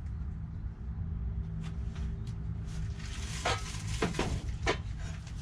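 Light clinks and knocks of metal tools and engine parts being handled, with a cluster of sharper clatters about three and a half to five seconds in, over a steady low hum.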